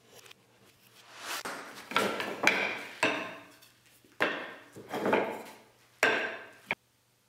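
Wooden boards and blocks being slid and set down against one another: several rubbing scrapes, each ending in a sharp wooden knock. The sound cuts off suddenly near the end.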